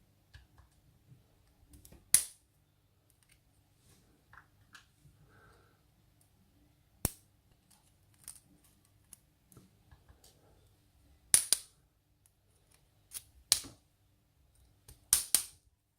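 Small metal lock parts (pin-tumbler drivers and springs) clicking and tapping as they are handled and taken out of a gutted challenge lock. The clicks are sharp and scattered: a few loud ones among fainter ticks, with a quick pair near the end.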